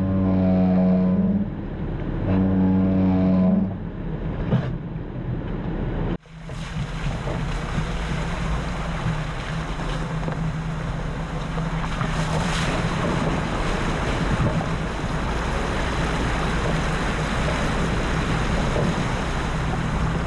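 Jeep engine running under a loud rushing of wind and motion noise. Two steady, horn-like tones of about a second and a half each sound in the first four seconds, and the sound breaks off abruptly about six seconds in before the engine and rushing resume.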